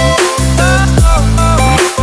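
Background electronic dance music in a dubstep style, with a heavy sustained bass that drops in pitch in sweeps and a beat hitting about once a second.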